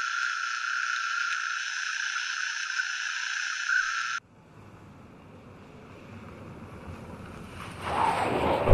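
A steady high-pitched hiss, like static, that cuts off abruptly about four seconds in. It is followed by a low rumbling swell that builds steadily louder toward the end.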